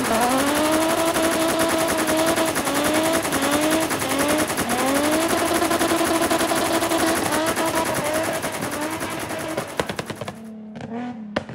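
Car engine revving up and held at high revs with rapid crackling pops from the exhaust. The pitch dips and climbs again several times before the sound drops away near the end.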